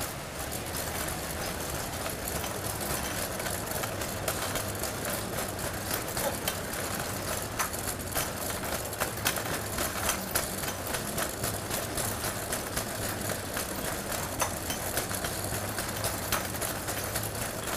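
City street ambience: a steady hum of traffic with irregular sharp clicks and taps.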